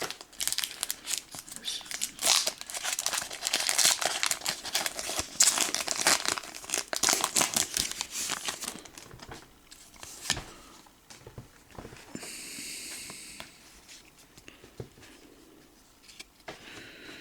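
A foil booster-pack wrapper crinkling and tearing as the pack is opened, dense and crackly for about the first nine seconds, then quieter scattered rustles.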